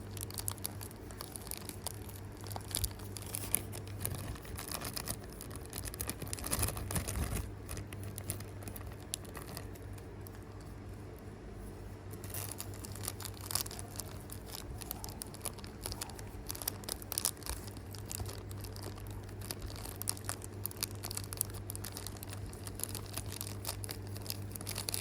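Plastic packaging crinkling and tearing as it is worked open by hand, with scattered crackles and clicks, busiest in the first third and again around the middle, over a steady low hum.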